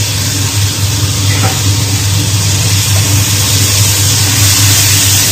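Silkworm pupae and chopped scallions sizzling in a hot oiled wok as they are stir-fried and tossed with a wooden spatula, the hiss growing stronger in the second half, over a steady low hum.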